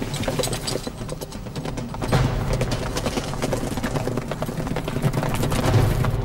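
Several horses galloping hard: a dense, continuous run of hoofbeats.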